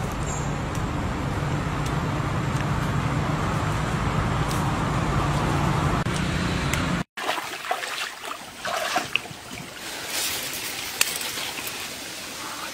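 A loud, steady rushing noise with a low hum that cuts off abruptly about seven seconds in. After it, a quieter forest stream with scattered rustles and clicks of plants being handled.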